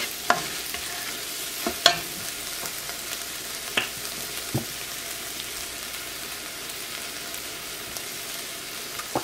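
Eggs scrambled in spiced onion sauce sizzling in a nonstick pot, being cooked down dry for a pastilla filling. A spatula scrapes through the mixture with four sharp strokes in the first five seconds, then only the steady sizzle goes on.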